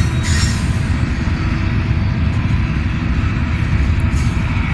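Double-stack container freight train rolling past, a steady loud rumble of wheels on rail. A brief higher noise rises over it about a third of a second in and again near four seconds.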